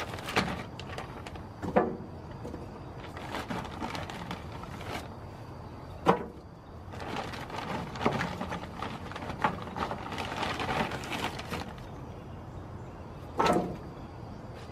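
Hickory wood chips being tipped from a plastic bag into a steel smoker's firebox: the bag crinkles and rustles while the chunks clatter onto the metal, with a few sharp knocks, the loudest about six seconds in.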